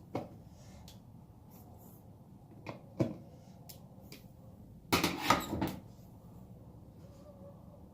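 A few sharp clicks and knocks of hard objects being handled, with a short cluster of knocks about five seconds in.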